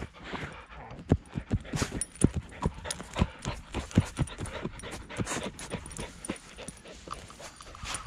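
American Staffordshire Terrier close to the microphone: a quick, irregular run of thumps and breathy puffs, a few a second, starting about a second in and easing off near the end.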